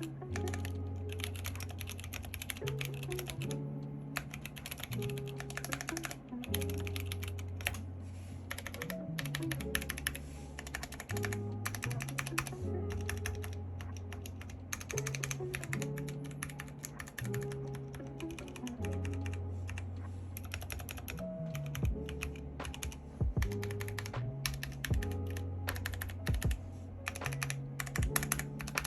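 Typing sound test on a GMMK Pro mechanical keyboard with Kailh Pro Purple tactile switches and GPBT PBT keycaps: a fast, uneven stream of key clacks. A lo-fi beat with a steady bass line plays under it.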